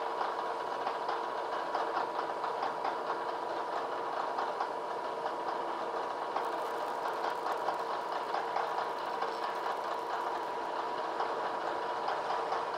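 Vertical milling machine running with its spindle whining steadily while an end mill cuts a casting as the table is fed by hand, giving an even, grainy cutting noise over the hum.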